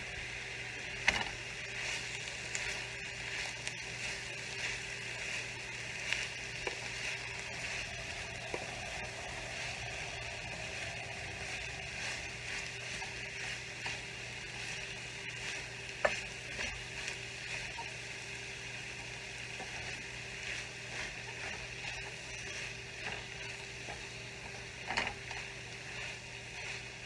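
Cabbage, carrots, onions and celery sizzling steadily in hot oil in a frying pan on medium-high heat while being stirred, with a few sharp clicks of the utensil against the pan.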